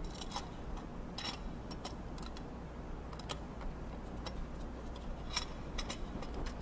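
Irregular light metallic clicks and taps as a screwdriver turns the screws that hold the stainless steel coupling guard on a Grundfos CR vertical multistage pump, with the guard shifting against the pump frame as it is handled.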